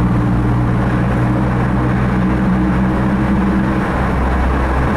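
Car engine and road noise heard from inside the cabin: a steady low drone that shifts slightly near the end.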